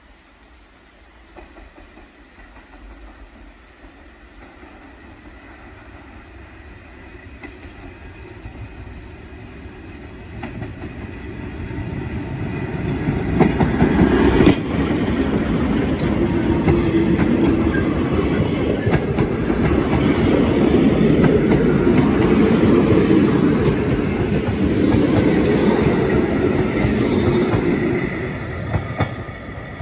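Steam-hauled passenger train coming out of a tunnel and passing close by: a rumble that builds over about twelve seconds, a sharp knock as the locomotive draws level, then the clickety-clack of the coaches' wheels over the rail joints, falling away near the end.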